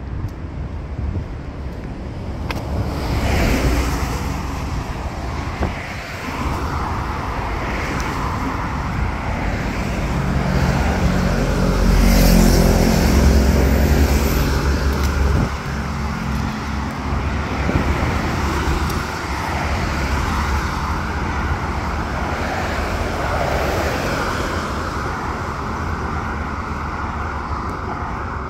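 Steady road traffic noise, a continuous rumble of passing vehicles that swells to its loudest about halfway through.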